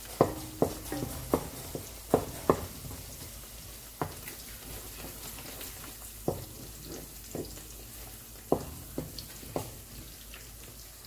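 Onions sizzling as they fry in oil over high heat, while a wooden spoon stirs them and knocks and scrapes against the metal pan about ten times. The knocks come thickest in the first few seconds and stop near the end.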